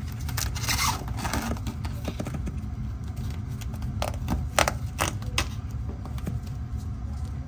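Foam pipe insulation with an adhesive backing being handled and wrapped by hand around a TXV sensing bulb on a copper suction line: rustling and scraping, with a few short sharp crackles a little past halfway. A steady low rumble runs underneath.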